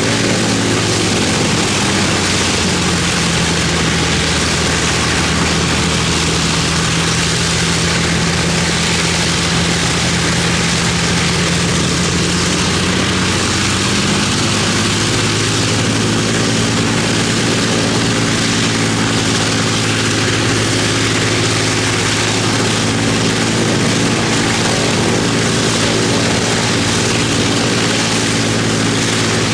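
Avro Lancaster's Rolls-Royce Merlin V-12 engines running loud and steady on a ground test run, propellers turning. The engine note changes about halfway through as the engine speeds shift.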